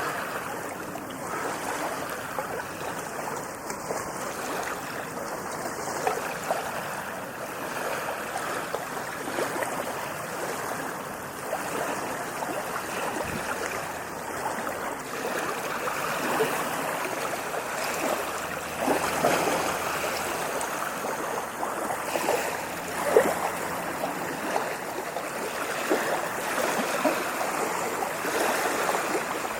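Ocean surf washing in as a steady rush of water, full of fine fizzing crackle, swelling a little louder a couple of times in the second half.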